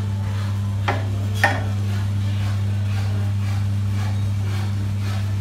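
A steady low hum runs throughout. About a second in come two light knocks, close together, as a spirit level is set against a wall-mounted radiator bracket.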